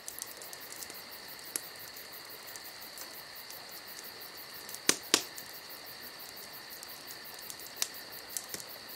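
Steady high-pitched insect trilling with a fast, even pulse. A few sharp clicks come through it, the loudest two close together about halfway through.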